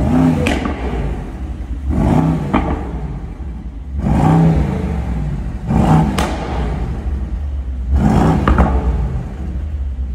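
Intro soundtrack: a deep steady bass with a swelling hit about every two seconds, whooshing and engine-like.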